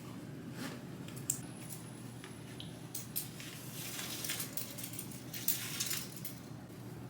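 Rustling and handling noises, with a few light clicks, over a steady low room hum; the rustling comes in short spells and is busiest in the second half.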